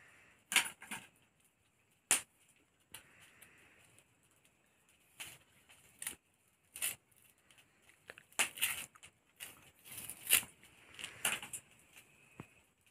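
A cooked bamboo tube being peeled and split open by hand to get at the bamboo rice inside: irregular cracks and tearing of the bamboo fibres, with a few louder snaps spread through.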